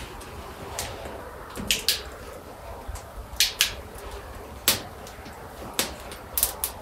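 Scattered sharp clicks and light knocks, about nine of them, some in quick pairs, from a person handling things on the rock floor beside a small smoky fire.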